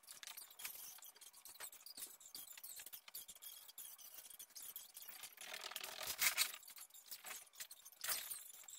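Handling noise as studio furniture is moved about: scattered light clicks, taps and scrapes, with a louder scraping rustle about six seconds in and another near the end.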